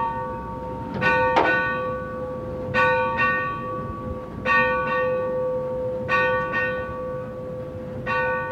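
Locomotive bell rung by hand. The clapper strikes twice on each swing, giving five double rings about every second and three quarters, with the bell's hum ringing on between them.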